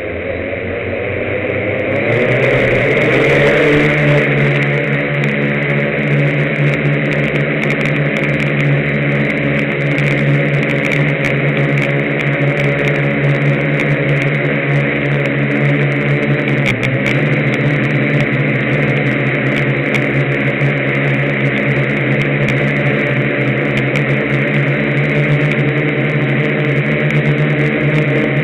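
HLY6 Y6 multicopter's six electric motors and propellers spooling up and lifting off, rising in pitch and loudness over the first few seconds. They then settle into a steady, loud buzzing hum in flight, heard close from the camera on board.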